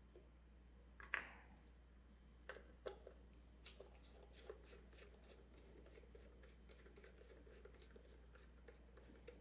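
Faint clicks and light taps of small screws and plastic parts being handled and worked loose, with one sharper click about a second in and a run of small ticks in the second half.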